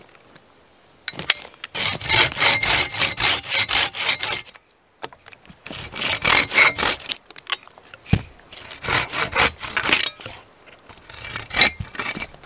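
Hand saw cutting through a mossy wooden branch in quick back-and-forth strokes, in four runs with short pauses between them. A single low knock sounds about eight seconds in.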